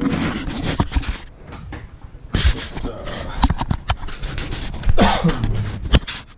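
Rustling, scraping and knocks of things being handled close to the microphone, irregular, with louder bursts about two and a half and five seconds in.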